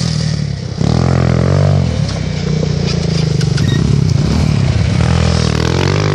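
Quad bike (ATV) engine revving as it climbs over dirt mounds. The throttle eases off briefly just before a second in, then opens up again and holds.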